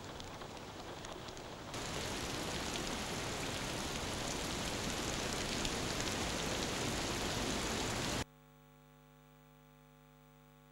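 Steady heavy rain, louder from about two seconds in, cutting off abruptly near the end and leaving only a faint low hum.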